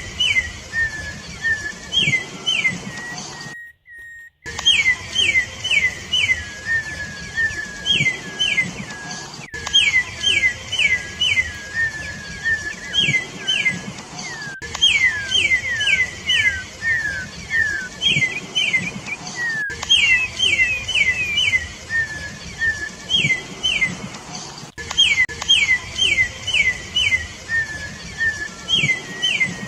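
Campo troupial (corrupião) singing: phrases of three to six quick, clear whistled notes, each sliding down in pitch, repeated after brief pauses. The song breaks off briefly about four seconds in.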